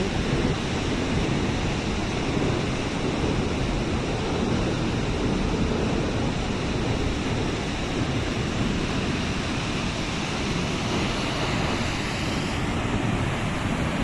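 Steady rushing roar of floodwater pouring from the Santa Rosa dam's open floodgates and churning in the gorge below. The dam is full and spilling its excess water.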